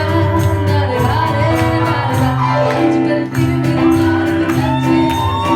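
Retro Bollywood film song with a singing voice and a steady beat, played loud through a PA in a large hall.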